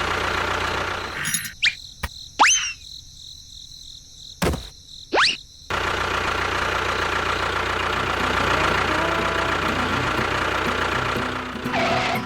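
An engine running steadily, stopping for about four seconds after the first second or so; during the gap come a few quick sweeping tones and a sharp click, then the engine sound resumes.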